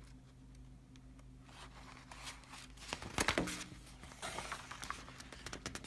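Paper rustling and soft clicks as the pages of a picture book are handled and turned, starting about a second and a half in.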